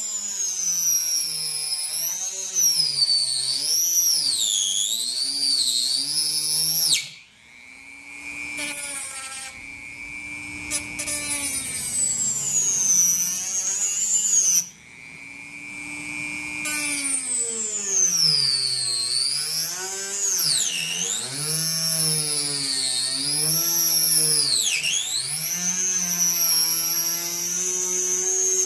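Dremel rotary tool spinning a 22 mm high-speed-steel mini circular saw blade at medium speed and cutting thin aircraft plywood. It makes a high whine whose pitch sags and recovers as the blade bites into the wood. The whine drops away briefly twice, about 7 and 15 seconds in, then builds up again.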